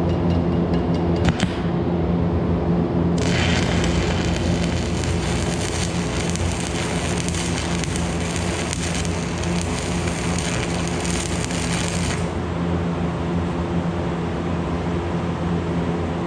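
Electric arc welder laying a short stitch weld: a steady crackling sizzle of the arc, starting about three seconds in and stopping about nine seconds later, over the steady hum of the welding machine. A few sharp clicks near the start.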